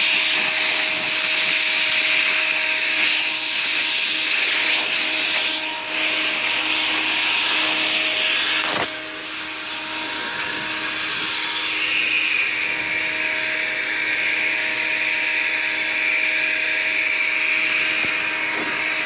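Leaf blower running steadily, a motor hum with a strong rush of blowing air. The level dips briefly about halfway through, then picks back up.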